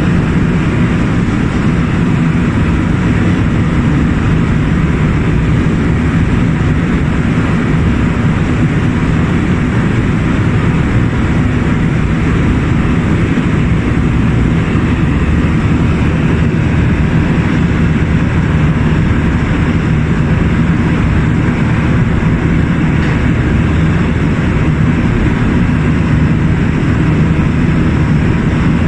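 A fast boat's engines running steadily at speed, with the rush of the churning wake and wind.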